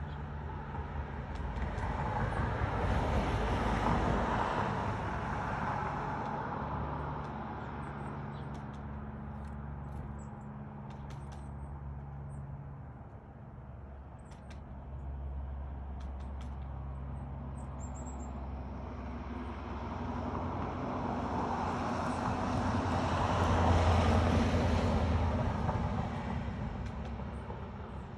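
Road traffic on the street: one vehicle passes about four seconds in and another around twenty-four seconds, each swelling and fading, over a steady low engine hum. A few faint clicks fall between the two passes.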